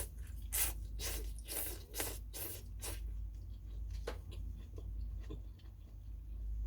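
Close-up eating sounds of phở: a quick run of about six short, noisy mouth bursts in the first three seconds, then scattered light clicks.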